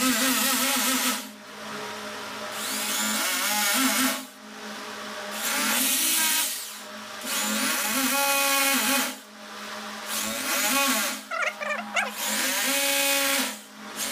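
Corded electric drill boring into a wall, run in repeated bursts of one to two seconds with short pauses between, the motor tone rising as it spins up each time.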